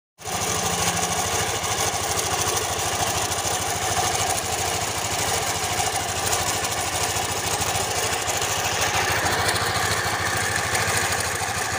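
Yamaha NMAX scooter's single-cylinder engine idling steadily with a rough, rasping rattle ('kemrasak'). The mechanic traces the noise to a worn, loose camshaft bearing.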